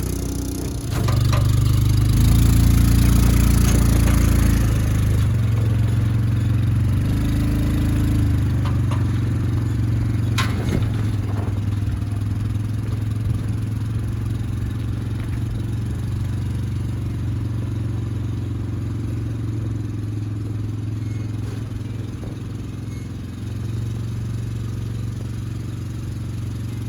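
Tractor engine running steadily under load, its speed and level shifting a few times, as it moves a square baler; a single sharp knock about ten seconds in.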